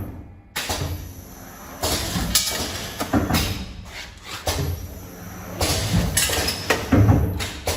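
Vertical packaging machine running, giving uneven mechanical clacks and clinks about once a second.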